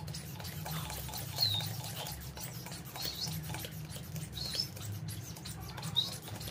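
Hand balloon pump being worked to inflate a long modelling balloon, giving short high squeaks about every second and a half with light clicks in between.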